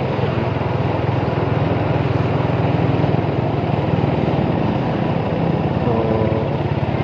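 Motorcycle engine running at a steady cruising pace, heard from the rider's seat, with a fast, even low pulse.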